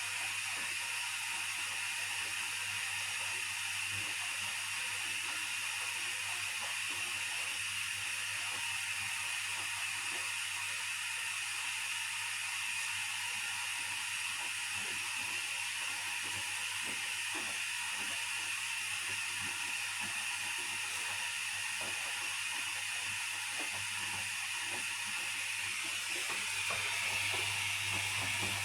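Hotpoint Aquarius washing machine running: a steady hiss with a low hum underneath and faint ticking, growing slightly louder near the end.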